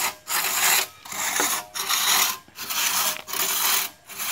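Two-man crosscut saw rasping back and forth through a felled log, in an even rhythm of strokes a little under a second long with a brief pause at each change of direction.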